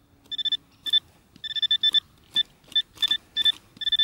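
Handheld metal-detecting pinpointer probe beeping in short, irregular high-pitched bursts as it is worked through loose soil, signalling a metal target close to its tip.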